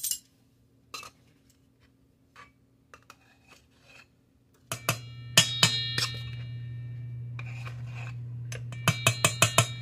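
Metal measuring spoon clinking against a mixing bowl: faint light taps at first, then sharp taps about halfway and a quick run of them near the end that leave the bowl ringing. A steady low hum comes in about halfway and carries on.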